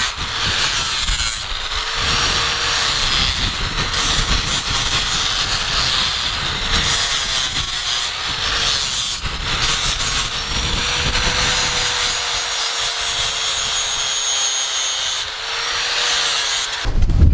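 Electric power tool running at a steady pitch with a harsh abrasive hiss, its motor tone sagging briefly several times as it is pressed into the work. It cuts off just before the end.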